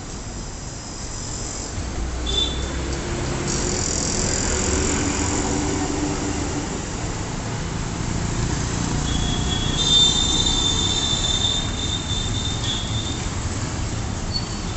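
Road traffic running steadily, with a sustained high-pitched squeal lasting about three seconds near the middle and a brief shorter squeal early on.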